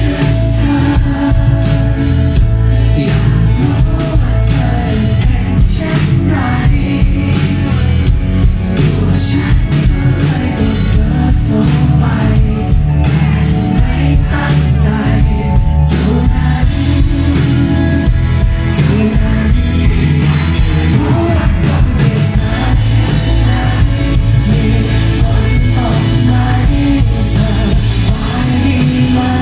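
Live pop-rock band performing a song: a male lead vocal sung into a microphone over electric bass, synthesizer keyboard and drums, loud and continuous.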